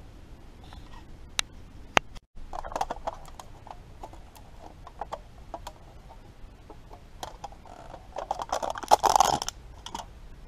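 Crinkling and rustling of food packaging, loudest about eight to nine seconds in as a foil lid is peeled off a small pot of golden syrup. Under it, the small wood fire in a folding stove crackles, with a couple of sharp clicks in the first two seconds.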